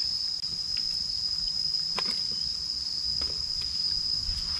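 A steady, high-pitched insect chorus, an unbroken drone, with a faint click about two seconds in.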